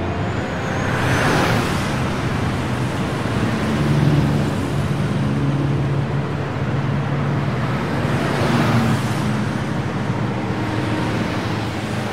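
Road traffic on a city street: a steady rush of engines and tyres from passing cars, a small truck and motorcycles. Vehicles pass close about a second and a half in and again around eight seconds in.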